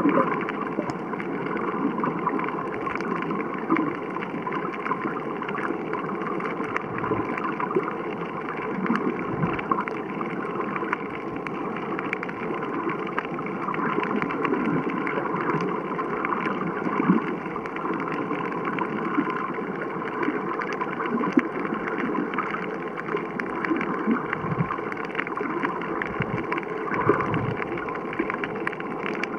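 Muffled underwater ambience picked up by a submerged camera: a steady watery rush with scattered faint crackles and small swells.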